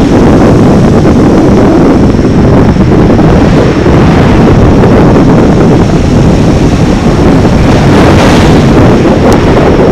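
Loud, continuous rumbling noise of wind buffeting the microphone.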